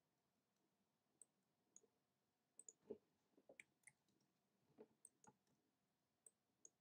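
Near silence with a dozen or so faint, irregular clicks of a computer mouse, starting about a second in.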